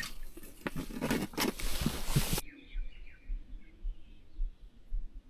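Close rustling and knocking with a hissing scrape, as a caught fish is handled. This cuts off suddenly about two and a half seconds in, leaving faint bird chirps and occasional low thumps.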